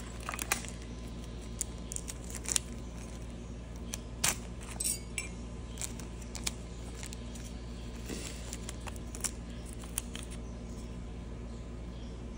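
Hands handling small jewellery packaging: scattered light clicks and crinkles of a small plastic bag and cardboard box, with faint metallic clinks of a thin white gold chain, the sharpest clicks a little past the middle, over a steady low hum.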